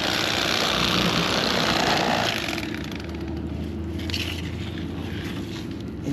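A rushing hiss for about two seconds, then the steady low hum of an engine running at a distance.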